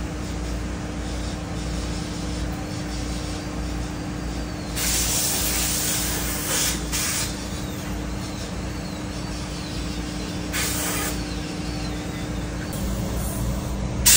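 Steady low hum of workshop equipment with three short hisses over it, the first about five seconds in and lasting over a second, the others near seven and eleven seconds in.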